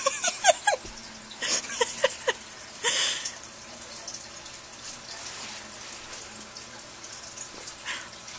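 A dog's short, high whines, each falling in pitch, come in two quick runs over the first couple of seconds, with a short huff just after, while the dogs play-wrestle. After that there is only faint scuffling.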